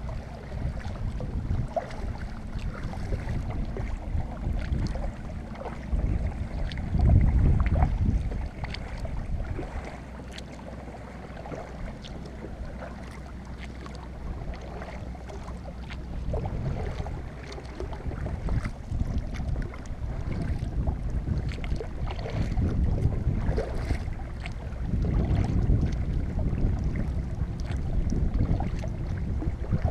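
Kayak paddle strokes dipping and splashing in the water, with drips off the blades, under gusts of wind buffeting the microphone. The loudest gust comes about seven seconds in and another swells near the end.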